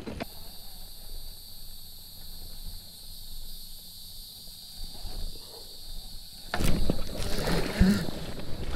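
Quiet retrieve from a fishing kayak, then about six and a half seconds in a sudden burst of loud handling noise, knocks on the kayak and water splashing as a bass is hooked and fought beside the boat.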